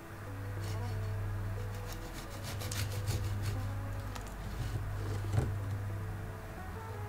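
Serrated bread knife sawing back and forth through a moist banana bread's crust and crumb, a rasping scrape in repeated strokes, with the loudest moment a sharp click about five and a half seconds in.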